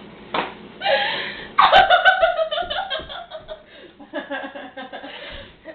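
Young women laughing: a loud burst of laughter about a second and a half in, trailing off into quieter giggling.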